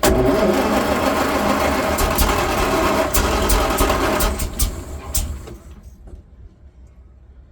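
Bedford RL truck's petrol six-cylinder engine being cranked over by the starter, boosted by a jump pack, for about four seconds, with a few sharp pops as it tries to fire. It then winds down and stops without running: a hard-starting engine that won't catch.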